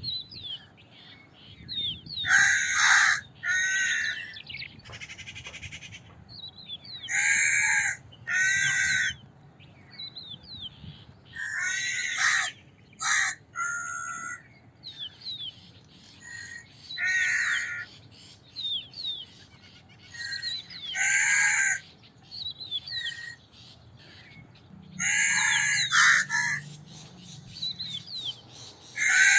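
Crows cawing: harsh calls, mostly in pairs, repeated every few seconds, with small birds chirping faintly in the background.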